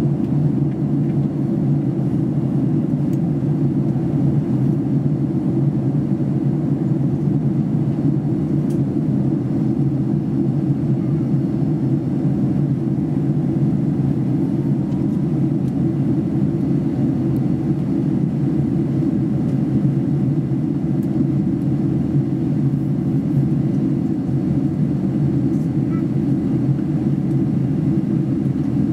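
Steady, even roar inside the cabin of a Boeing 767-300 airliner in flight, made up of engine and airflow noise, deepest in the low register.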